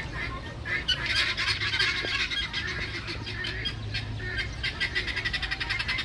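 Many birds calling at once in a dense, fast chatter of short chirps and squawks, thickening about a second in.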